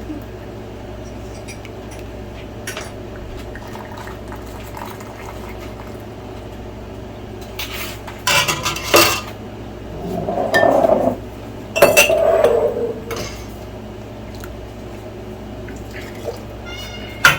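Kitchen utensils and dishes clinking and clattering against pots and glass jars, in a few short bursts with the busiest around eight and twelve seconds in, over a steady low hum.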